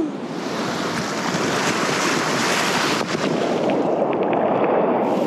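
Ocean surf washing over rocks at the water's edge, a steady rush of waves and foam.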